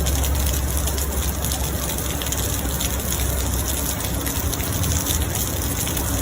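Steady rushing of floodwater, with rain, heard as a dense, even noise. A low rumble sits underneath and eases after about two seconds.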